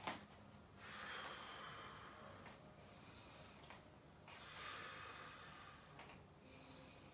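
Faint, slow breathing by a person moving through a slow qigong-style exercise. Soft breaths of a second or two each come with short pauses between them.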